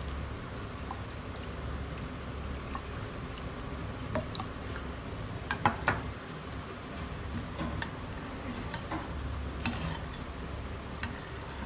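Tamarind water poured into a bowl of green pani, then a steel spoon stirring the liquid, with a few light clicks.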